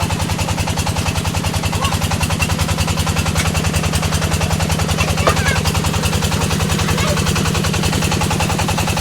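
Brick-making machine running steadily: a rapid, even knocking of about eight beats a second over a steady low hum.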